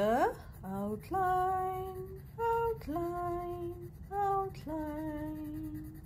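A woman's voice singing a slow tune of long held notes, each steady in pitch, with shorter notes between them; the last note is the lowest.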